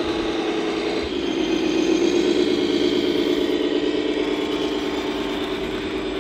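Scale RC Mercedes-Benz Actros truck's simulated diesel engine sound, running steadily and then stepping up in pitch about a second in, loudest around two seconds in as the truck drives past under load.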